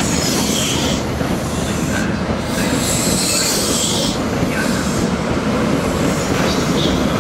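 CrossCountry HST Mark 3 coaches rolling slowly past along the platform, their wheels rumbling steadily on the rails. High-pitched wheel squeal comes in during the first second and again from about two and a half to four seconds in.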